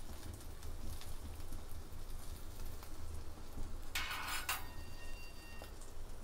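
Butter sizzling gently under a slice of egg-dipped bread frying on low flame, with faint scattered crackles and pops. A short, louder rush of noise about four seconds in.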